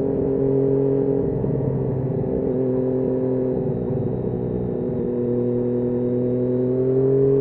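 Triumph Daytona 675 inline-three engine running steadily under way, its pitch easing down slowly and then rising a little near the end.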